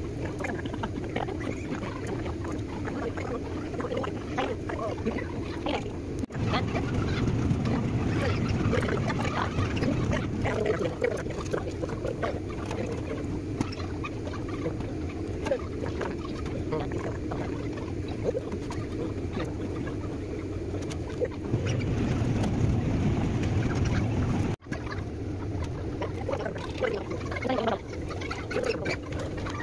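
Indistinct hubbub of a busy room full of people, with small clatters and handling noises and no clear words; the sound drops out for a moment twice.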